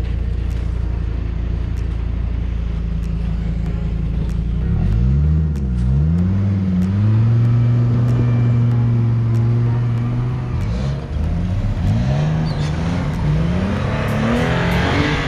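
4x4 engine idling, then revving up and down several times and holding at higher revs while pulling a heavier vehicle with a trailer through snow. Light clicks sound throughout.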